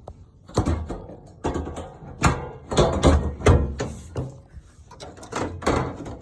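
Dell Dimension 5150 desktop's case cover being fitted back onto the chassis: a string of irregular clunks and clicks, with scraping in between, as the panel is worked into place.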